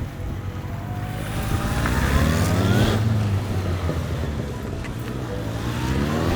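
Police motorcycle engines running under a steady low hum, the engine note rising as a bike accelerates about two seconds in and again near the end.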